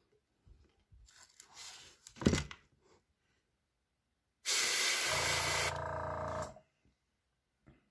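Gravity-feed airbrush spraying paint in one burst of about two seconds: a loud steady hiss that turns into a lower, buzzier sputter for its last second before cutting off. Before it come quiet handling sounds and one sharp knock.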